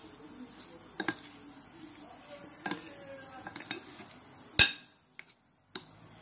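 A steel spoon clinking and scraping against a glass bowl while mixing a crumbly filling, in scattered light taps with one sharp, louder knock a little past halfway.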